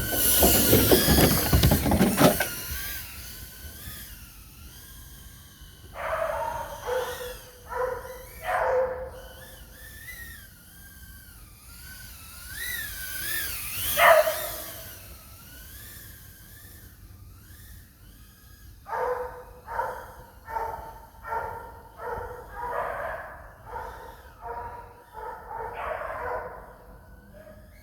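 Dogs barking in quick runs: a few barks about six seconds in, a single bark near the middle, and a long string of barks over the last ten seconds. Under them a high whine wavers up and down in pitch, the FPV quadcopter's motors, and a loud rush of noise fills the first two seconds.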